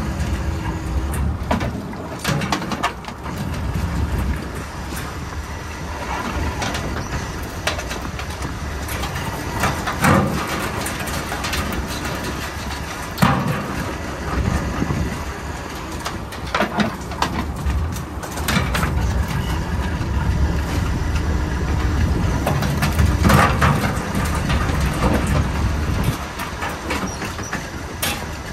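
A workboat's engine running steadily under sharp metallic clanks and rattles every few seconds as a wire crab pot is shaken out and handled at the rail.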